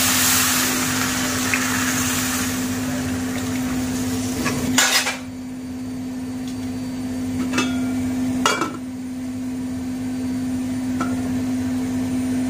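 Water splashed into a hot aluminium kadai of frying carrot and onion masala hisses loudly, then cuts off about five seconds in. A few sharp metal clinks of pan and utensil follow.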